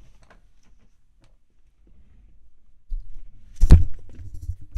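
Handling noise from things being moved about in front of the microphone: mostly quiet at first, then low rumbling and bumping from about three seconds in, with one sharp thud a little later, the loudest sound, followed by a few smaller knocks.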